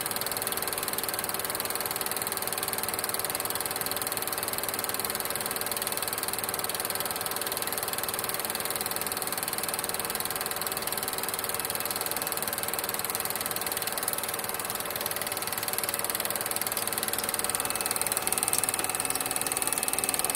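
Elmo Sound Hi-Vision SC-18M Super 8 projector running film, a steady mechanical whir and clatter from its motor, fan and film transport, working again on newly replaced belts. It gets slightly louder near the end.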